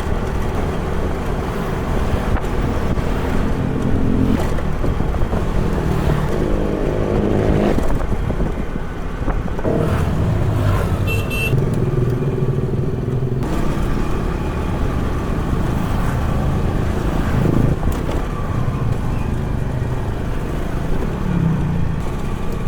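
Motor vehicle engine running in road traffic, its pitch shifting up and down several times, with a brief high beep about eleven seconds in.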